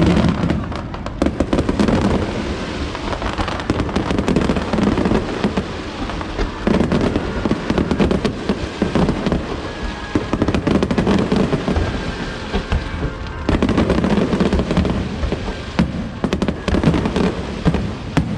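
Aerial fireworks going off in a dense, continuous barrage of overlapping bangs and crackles.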